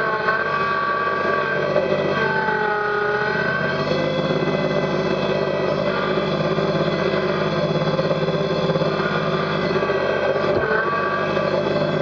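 Kubota BX sub-compact tractor's three-cylinder diesel engine running steadily while the front loader is worked, with a whine that bends up and down in pitch for the first few seconds and again near the end as the hydraulics take load.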